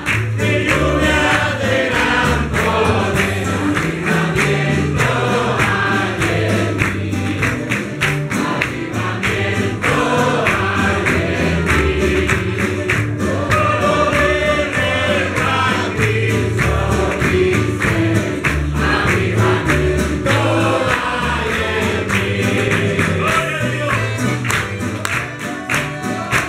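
Congregation singing a gospel hymn together over a live church band, with a steady bass line and regular drum beats under the voices.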